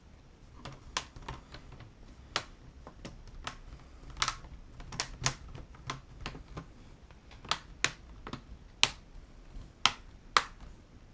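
Plastic clips of a Samsung NP350V5C laptop's screen bezel snapping into place as the front frame is pressed back onto the lid: about a dozen sharp, irregular clicks.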